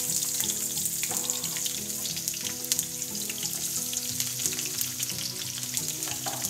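Sliced onions sizzling in hot oil in a frying pan, just dropped in with whole spices: a steady frying hiss with frequent small pops.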